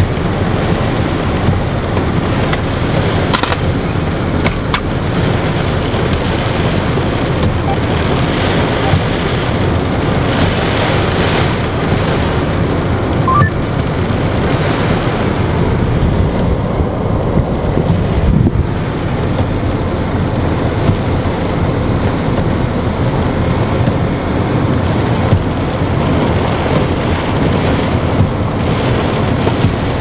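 Strong storm wind and heavy rain beating on a car, heard from inside the car: a loud, steady rushing noise, with a few sharp knocks a few seconds in.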